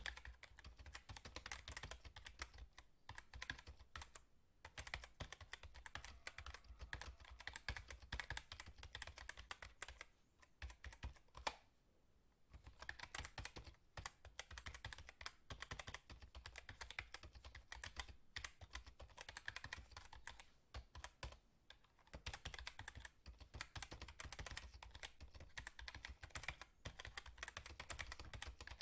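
Fast typing on a computer keyboard: rapid, dense key clicks in long runs, broken by short pauses, with a lull of about a second near the middle.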